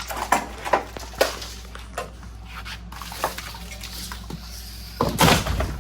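Old truck wiring harness being cut and torn out: a run of short snips and scrapes, then a louder rough rustle near the end.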